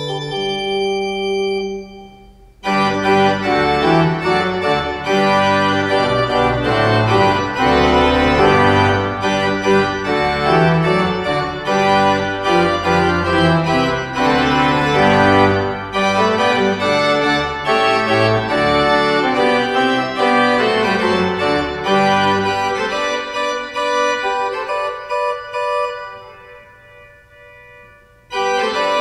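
Noehren pipe organ playing. A chord releases about two seconds in, and then a loud, full passage of shifting chords over a deep moving bass follows. It dies away slowly in the church's echo, and a new loud chord starts just before the end.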